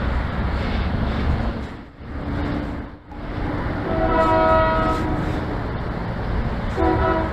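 A horn sounds a steady, held note for about a second, then again briefly near the end, over steady road and wind noise.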